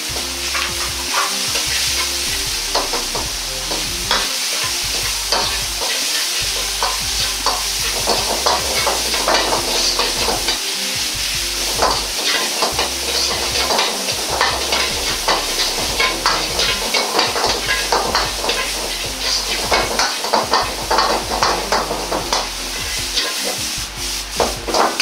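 Metal ladle stirring and scraping ground pork and chopped vegetables in a hot wok, in many quick, irregular strokes over a steady sizzle.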